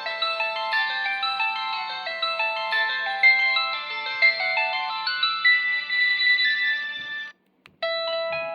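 LG VX9800 cell phone's preloaded ringtone playing a quick melody of several notes at once. It cuts off abruptly about seven seconds in, and after a brief pause another ringtone begins.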